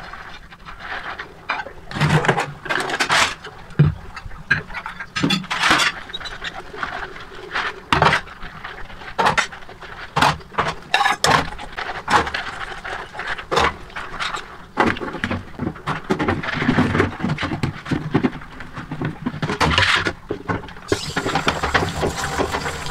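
Hand-scrubbing dishes with silicone scrubbing gloves in a stainless-steel sink: rubbing and scraping on a plate and a steel bowl, with irregular knocks and clinks of dishware against the sink. Near the end the tap is turned on and water runs steadily.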